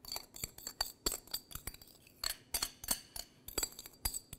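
A utensil scraping and clinking against a glass bowl as marinade is scraped out of it over chicken in a roasting pan: quick, irregular clinks and taps, several a second, with a bright glassy ring.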